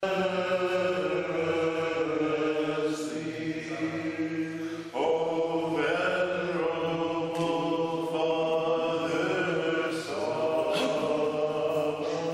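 Men's voices chanting an Orthodox hymn together, slow phrases of long held notes over a low steady note sustained underneath; the phrases break off and start again about five and ten seconds in.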